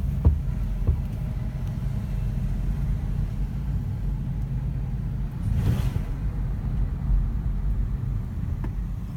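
Steady low rumble of a car's engine and tyres heard from inside the cabin while driving, with a brief hiss about six seconds in.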